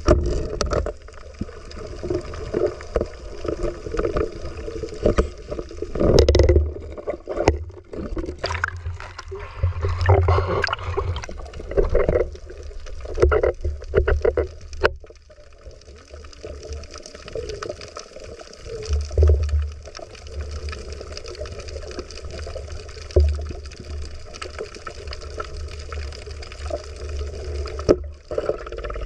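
Muffled underwater sound picked up through a camera's waterproof housing: water moving and gurgling over a steady low rumble, with scattered knocks and clicks as the diver handles the camera and spear.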